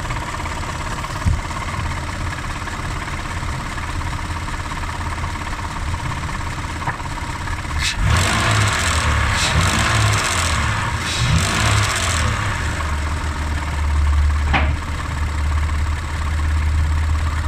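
Mitsubishi 6B31 3.0-litre V6 petrol engine idling, then revved for about four seconds starting about eight seconds in, before dropping back to a steady run. It is being revved to bring out an engine knock the owner is tracing.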